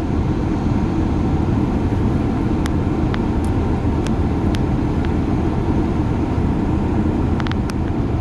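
Steady low rumble with a few short, faint high ticks scattered through it, a cluster about three to four seconds in and a couple more near the end.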